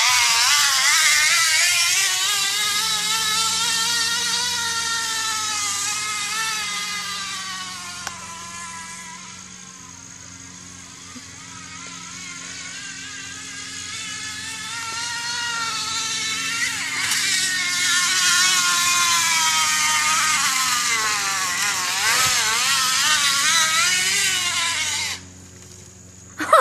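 Plastic water bottle set against a bicycle's spokes, buzzing like a small motorbike engine, with a wavering pitch that changes with wheel speed. It fades around ten seconds in as the bike moves off, grows loud again as it comes back, and cuts off suddenly near the end.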